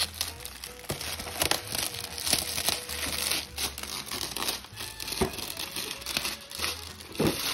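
Clear plastic wrapping being crinkled and pulled off a cardboard advent calendar box: an irregular run of crackles and rustles.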